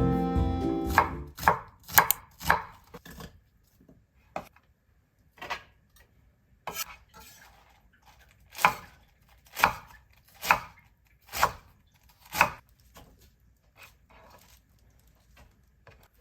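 A kitchen knife chopping on a cutting board: about a dozen single strokes, unevenly spaced, with the loudest run coming in the second half.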